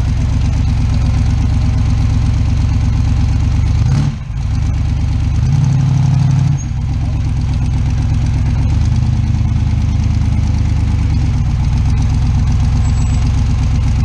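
Rock buggy's engine running steadily under load as the buggy crawls up a rock ledge. It dips briefly about four seconds in, then revs harder for about a second before dropping back sharply.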